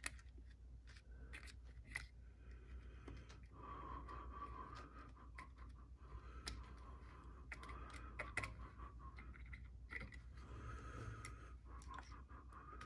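Faint rubbing and scraping with scattered light clicks: hands working over the metal body of a vintage Singer 306K sewing machine while cleaning and oiling it.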